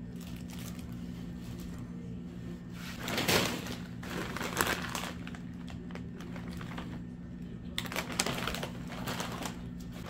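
Plastic bread bag and potato-chip bag crinkling as they are handled and set down on a table, in two bouts: about three seconds in and again near the end. A steady low hum runs underneath.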